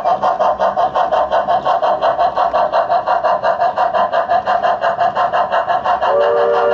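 Model steam locomotive's sound system playing steady steam chuffing, about six chuffs a second. A three-note chime whistle starts near the end.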